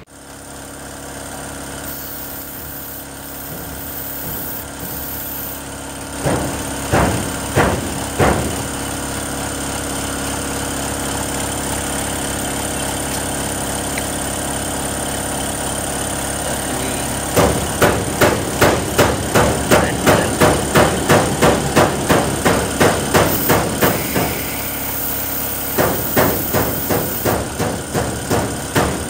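A toothbrush scrubbing the bore of a dirty electronic throttle body with cleaning fluid: a few separate strokes, then long runs of brisk, even scrubbing at about three strokes a second. A steady mechanical hum runs underneath.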